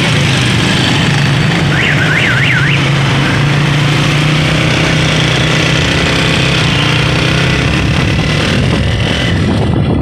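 Motorcycle engine running steadily while it rides through city traffic, with street and traffic noise around it. About two seconds in, a short warbling tone sweeps up and down about four times.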